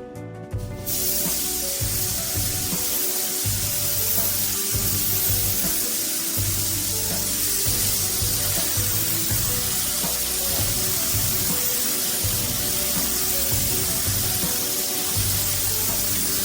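Background music over a steady, even hiss of spraying air that starts abruptly about a second in and runs on unbroken.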